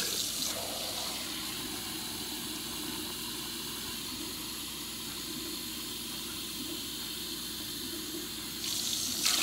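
Water being poured from a container into a pot of chopped vegetables, a steady running and splashing flow. It is loudest in the first half second, then runs on more quietly and grows louder again near the end.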